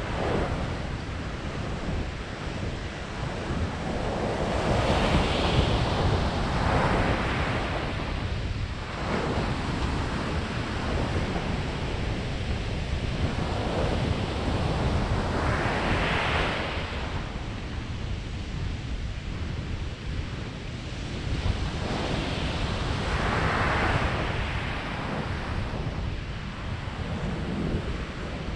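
Ocean surf breaking and washing up a sandy beach, swelling and fading in waves several seconds apart, over a steady rumble of wind on the microphone.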